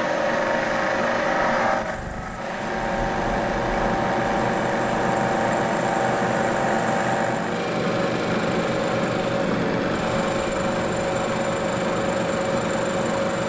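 Vertical milling machine running with an end mill cutting into a steel bar held in the vise: a steady machining noise over the hum of the spindle.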